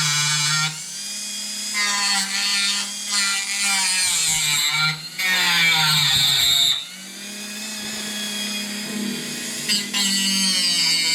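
Dremel rotary tool whining at high speed as its small grinding wheel works the edges of a stud hole under very light pressure. Its pitch sags and recovers as the wheel bites, and it goes quieter twice, about a second in and again about seven seconds in, as the wheel is eased off.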